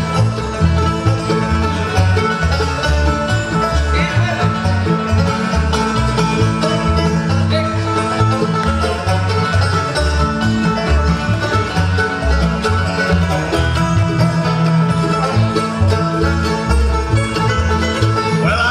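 Bluegrass band playing live in an instrumental passage: banjo, mandolin and acoustic guitar picking over a plucked upright bass keeping a steady beat.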